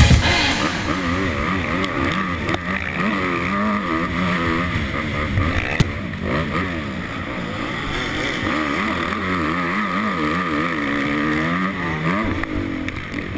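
Honda CRF250 motocross bike's single-cylinder four-stroke engine heard from the rider's helmet, its pitch rising and falling again and again as the throttle is worked through the gears. A single sharp knock about six seconds in.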